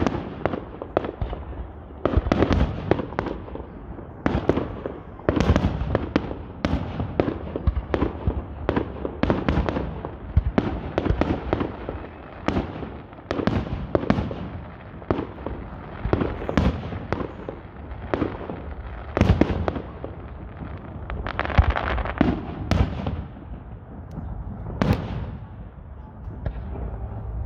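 Fireworks display: aerial firework shells launching and bursting, a continuous barrage of sharp bangs in quick succession, several close together at times.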